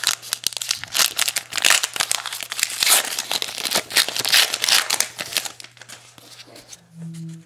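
A Topps Heritage baseball card pack wrapper being torn open and crinkled in the hands: dense crackling for about five seconds that then dies away.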